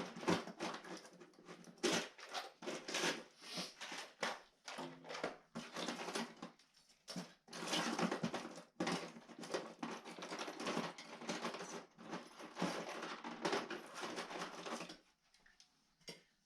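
Rapid, irregular clattering and clicking of small hard objects being handled and rummaged through, stopping about fifteen seconds in.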